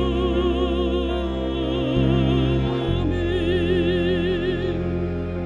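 Operatic mezzo-soprano voice holding one long note with wide vibrato, which ends shortly before the end, over a sustained low accompaniment.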